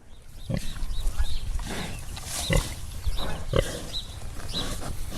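Pigs grunting, a short grunt about once a second, over steady background noise.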